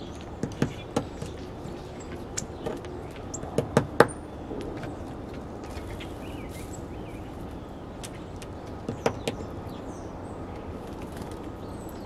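Downy woodpecker pecking at seed on a wooden platform feeder: sharp taps in three short clusters, about half a second in, around four seconds in and around nine seconds in, over a steady background hiss with a few faint bird chirps.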